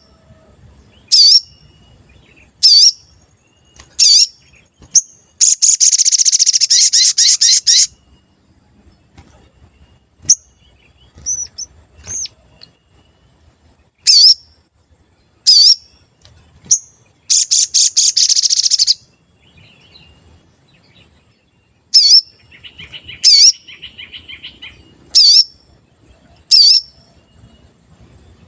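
A sogon bird singing: sharp, high 'cuit' notes repeated about every second and a half, broken twice by a long, rapid chattering rattle, with a softer, lower warble near the end.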